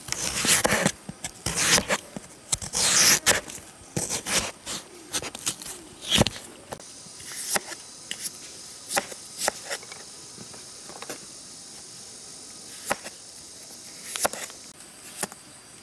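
Kitchen knife slicing through a firm peeled fruit and knocking on a plastic cutting board: a quick run of cuts in the first few seconds, then single chops every second or two. A faint, steady high-pitched hum of insects underneath.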